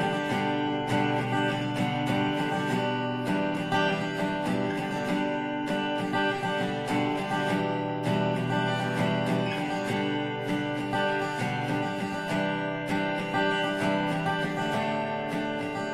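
Background music: a strummed acoustic guitar playing steadily, with no breaks.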